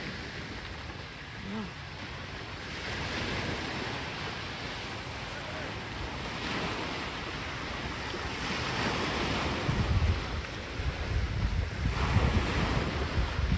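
Small waves breaking and washing up on a sandy, pebbly shore, a new surge every few seconds. Wind buffets the microphone, more strongly in the second half.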